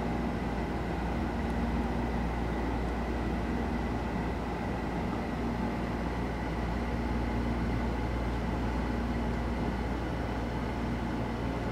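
Steady low hum and hiss of room background noise with a faint steady high whine; no distinct handling clicks stand out.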